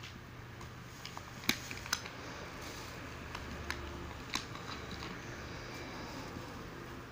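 Thin plastic bag crinkling and rustling as a ferret burrows into it, with a few sharp crackles, the loudest about a second and a half in and again past four seconds.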